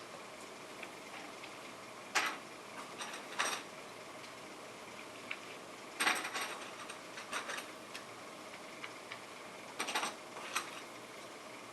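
Scattered small clicks and taps from handling an iPhone 5 in its hard case, with a few in quick clusters, over a steady low hiss.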